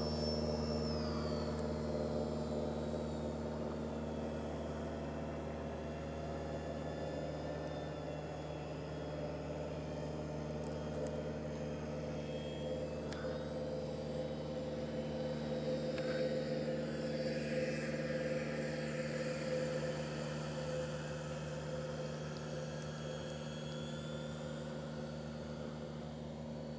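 Electric radio-controlled model airplane's motor and propeller whining as it flies around overhead, the pitch dropping about a second in and then drifting up and down, over a steady low hum.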